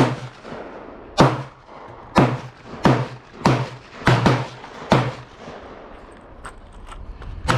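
Gun being fired repeatedly: about seven sharp reports over the first five seconds, a half-second to a second apart, each with a short echoing tail, then a pause of a couple of seconds before another shot near the end.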